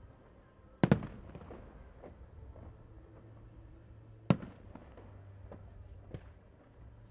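Fireworks salute: aerial shells bursting with a loud bang about a second in and another about four seconds in, a smaller bang near the end, and scattered lighter pops in between.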